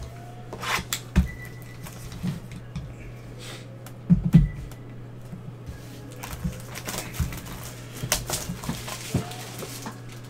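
Sealed cardboard trading-card boxes being handled, slid and set down: scattered knocks and taps, the loudest a short cluster of thuds about four seconds in, over a steady low hum.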